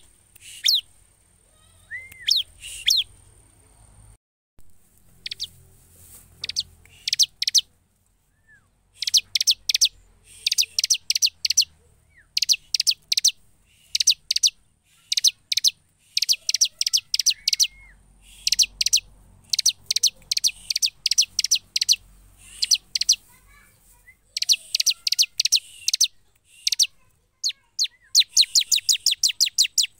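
Bar-winged prinia (ciblek) singing: bursts of rapid, sharp, high chirps, several notes strung together in quick succession and repeated after short pauses. The song is sparse for the first several seconds, then comes in dense runs.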